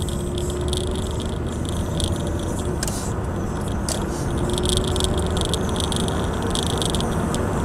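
Car cabin noise while driving on a snowy road: steady engine and tyre rumble, with a high buzz that cuts in and out.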